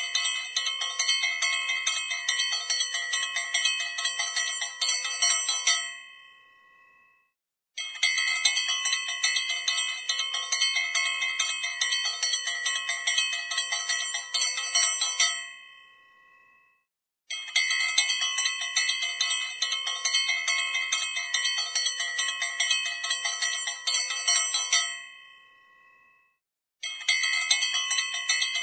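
Bells struck rapidly over and over, the strikes running together into a continuous ringing. The ringing comes in repeated phrases of about eight seconds. Each phrase ends with the ring dying away and a second or so of silence before it starts again.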